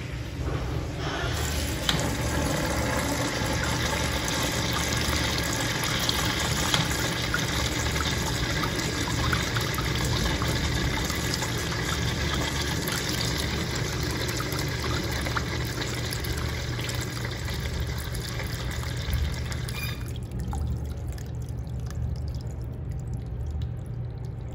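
Zurn sensor-operated flushometer flushing a porcelain urinal: water rushes steadily through the valve and washes down the bowl, starting about a second in. The rush stops about twenty seconds in, leaving a quieter trickle as the bowl drains, over a steady low hum.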